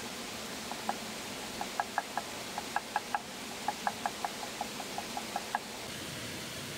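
Cleaver chopping on a round wooden cutting board: about twenty quick, sharp knocks at a few per second, stopping near the end, over the steady rush of a nearby waterfall.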